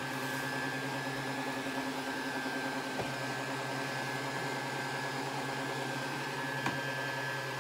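Soft-bonnet hood hair dryer's blower running steadily on its coolest setting, a constant hum with a thin high whine. Two faint clicks about three seconds and near seven seconds in.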